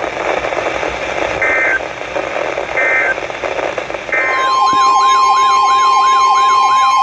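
Broadcast static hiss carrying three short data-tone bursts, the EAS end-of-message code closing the alert. At about four seconds the next alert starts: a loud steady alert tone under a fast, repeating siren-like wail.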